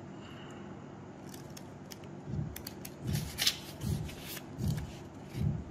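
Pages of a small paper instruction booklet flipped through by hand: quiet at first, then from about two seconds in a run of soft paper flaps and rustles, roughly one every three-quarters of a second.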